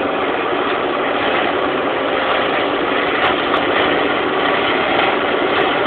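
Tractor engine running steadily, powering a boom-mounted slope mower (Böschungsmäher) that is cutting a hedge.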